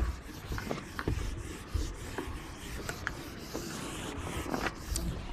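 Handheld eraser rubbing across a whiteboard in wiping strokes, with a few small knocks.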